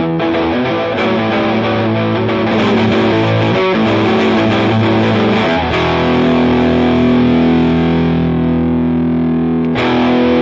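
Electric guitar played through a JOYO R21 overdrive pedal with its boost turned all the way up. Distorted riffing gives way, just over halfway through, to a chord left to ring and fade, and a new chord is struck near the end.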